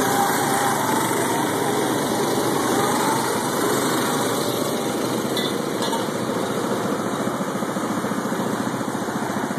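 Rental go-karts' small single-cylinder engines running, with a pitch that wavers as the karts speed up in the first three seconds, then a steady drone.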